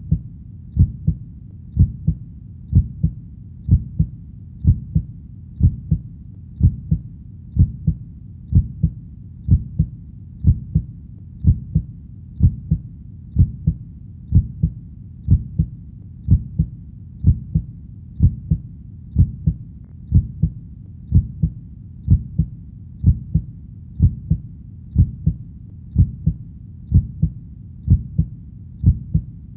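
Heartbeat: a steady, low double thump (lub-dub) repeating about once a second, evenly paced throughout.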